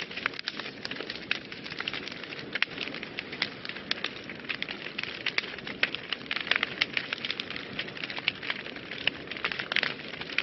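Wood fire burning in a fireplace, crackling with many irregular sharp snaps and pops over a steady hiss of the flames.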